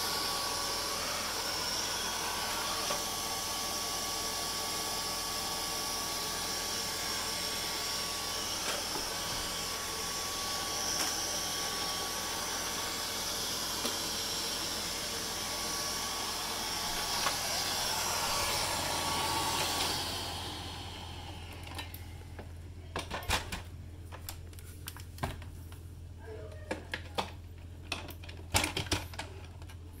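Neato D7 robot vacuum's suction fan and brush running steadily with a thin whine while it is stuck shuffling in a corner. The motor winds down and stops about two-thirds of the way through, followed by a series of scattered clicks and knocks.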